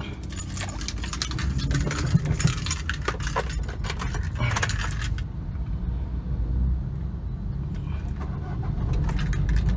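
Car keys jangling and clicking at the steering column as the key goes into the ignition, for about five seconds, then stopping. A low steady rumble continues underneath.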